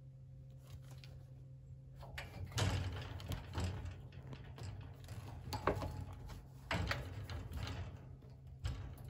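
Wire cat playpen rattling and its plastic floor tray knocking as a kitten scrabbles and tumbles against the bars, an irregular string of knocks and rustles starting about two seconds in.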